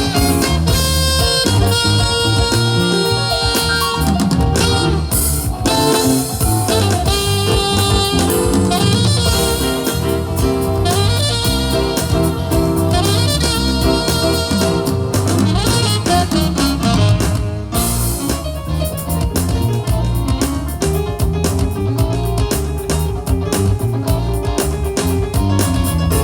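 Instrumental music with a jazzy saxophone-like lead over drums and bass, briefly dropping out about two-thirds of the way through.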